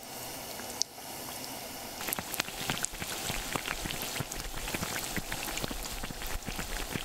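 Dough flat cake frying in hot oil in a frying pan: a steady sizzle full of dense, irregular crackling and spitting, which gets busier about two seconds in.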